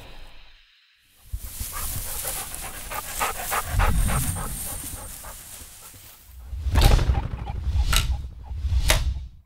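Sound effects from a commercial soundtrack. A noisy stretch with a rapid flutter comes first, then three sharp bangs about a second apart, each with a low boom.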